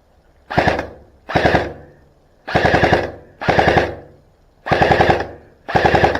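Airsoft electric rifle (AEG) firing six short full-auto bursts, about one a second, each a rapid rattle of the gearbox cycling.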